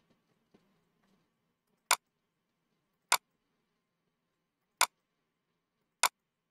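Computer mouse clicking: four sharp single clicks, spaced one to two seconds apart, as folders are opened one after another.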